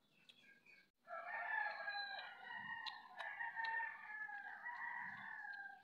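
Rooster crowing, a long drawn-out call starting about a second in, with a few faint clicks of crab shell being picked apart by hand.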